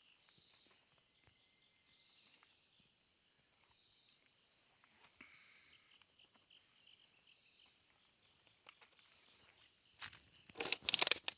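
Crickets and other insects trilling steadily in the forest. Near the end, a short burst of loud crackling and rustling.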